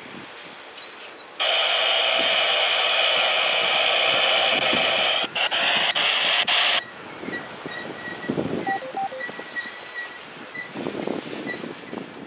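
A radio scanner breaks in with about five seconds of loud, hissy transmission, cutting off suddenly. Under it and after it, a slow freight train's flatcars loaded with rail roll past with occasional wheel and coupler clunks.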